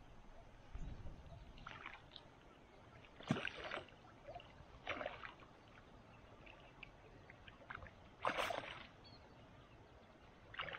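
A hooked catfish thrashing and splashing at the water's surface as it is played toward a landing net: several short splashes at irregular intervals, the loudest about three seconds in.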